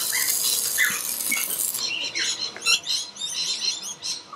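Electric arc welder crackling and hissing while welding a steel rail, stopping a little under two seconds in. After it stops, birds chirp and call in short bursts.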